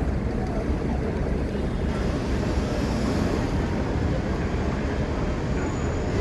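Busy city street traffic: a steady low rumble of car engines and tyres.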